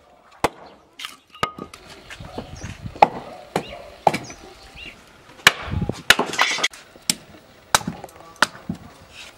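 Wood being chopped on a tree-stump chopping block: about ten sharp knocks at uneven intervals.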